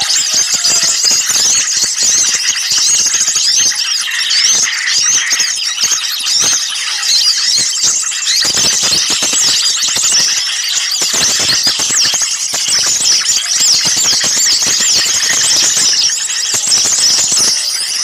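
Dense, loud chorus of many small songbirds chirping and twittering rapidly all at once, calls overlapping without a pause. It is a bird-lure recording of small birds in an agitated, noisy commotion, used to draw wild small birds in.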